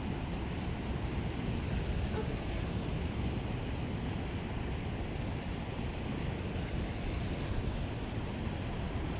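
Wind buffeting the microphone: a steady, fluctuating rush of noise, heaviest in the low end.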